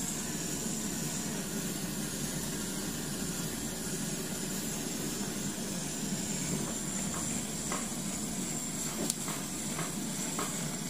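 Butane canister blowtorch hissing steadily as its flame singes the skin of a plucked turkey, with a few light clicks in the second half.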